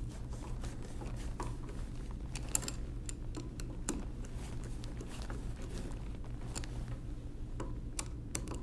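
Screwdriver tightening a screw into the steel frame of a 1920s Monroe mechanical calculator: scattered small metallic clicks and taps, the sharpest about two and a half seconds in, over a steady low room hum.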